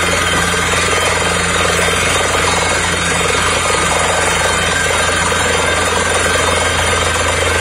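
Truck-mounted borewell drilling rig running steadily under load: a low drone from the engine and air compressor under a rapid, even chatter from the drilling.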